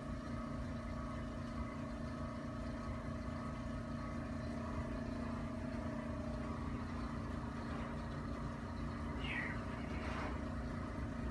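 Steady room hum with a few constant low tones, like an air handler or similar machine running, with a faint voice briefly about nine seconds in.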